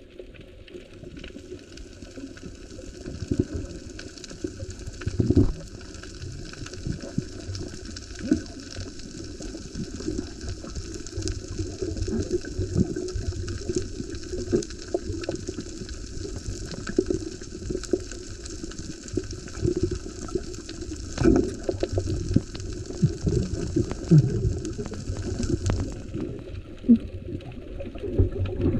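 Underwater sound from a camera held beneath the sea: muffled rushing and bubbling water with many irregular clicks and knocks.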